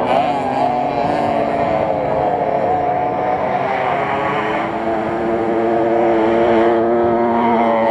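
Small two-stroke motorcycle engine running close up under the rider, holding fairly steady revs with small rises and dips.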